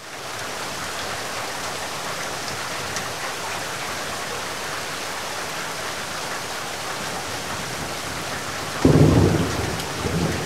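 Heavy rain falling steadily, with a sudden loud, deep rumble of thunder about nine seconds in that eases off toward the end.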